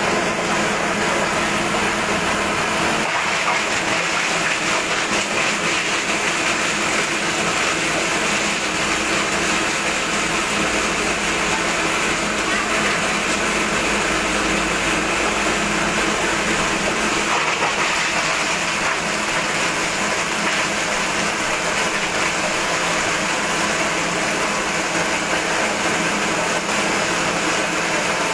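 Electric plastic-recycling machinery running steadily: a constant mechanical drone with no pauses, with a deeper hum added for several seconds midway.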